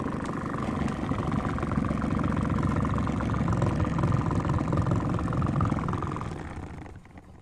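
Homemade washing machine's motor running steadily with a low hum and rattle, then dying away about six and a half seconds in.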